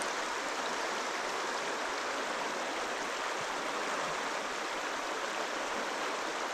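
Trout stream water flowing and rippling over rocks, a steady rushing wash.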